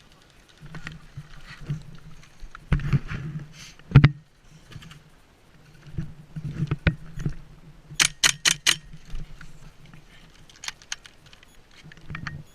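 Rattling and knocking of gear from an airsoft player on the move, irregular clicks and thuds over a low rumble, with a quick run of five sharp snaps about eight seconds in.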